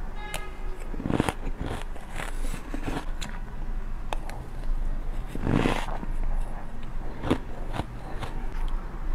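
Close-up crunchy bites and chewing of packed snow taken from a spoon, in a series of irregular crunches, the loudest a little past halfway. Near the end a metal spoon scrapes as it scoops through the snow.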